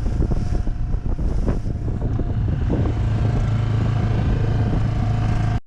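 A small yacht's motor running steadily, with wind buffeting the microphone; it all cuts off suddenly near the end.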